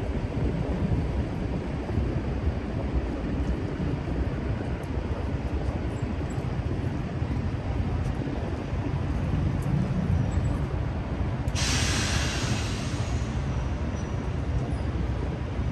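Steady low rumble of city street traffic. About three quarters of the way through, a sudden hiss of released air comes in sharply and fades over a couple of seconds.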